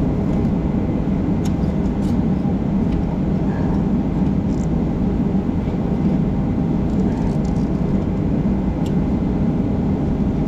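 A steady low mechanical rumble runs throughout. Over it come a few faint light metallic ticks as needle-nose pliers work old Heli-Coil thread inserts out of bolt holes.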